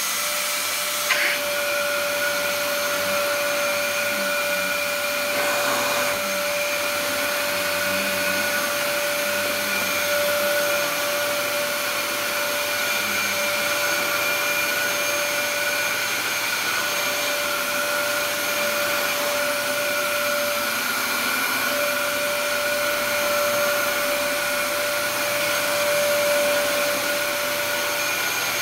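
Dyson DC07 upright vacuum cleaner running while it is pushed back and forth over carpet: a steady motor whine over a constant rush of air, holding level throughout.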